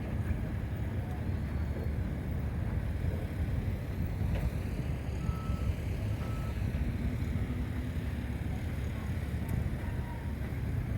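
Steady rumble of passing road traffic on a busy city street, with two brief faint beeps about five and six seconds in.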